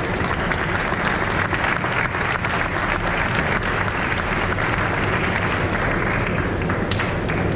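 A large audience applauding, with steady clapping throughout.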